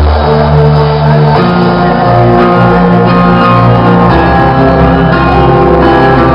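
Loud electronic dance music: sustained synth chords over a heavy bass, the chords changing about a second and a half in.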